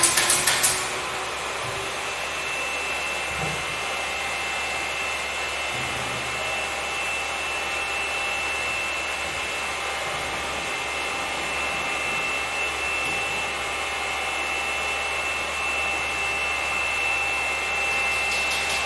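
A rapidly pulsing power tool stops under a second in, leaving a steady electric motor running with a high whine and hiss. The pulsing tool starts again at the very end.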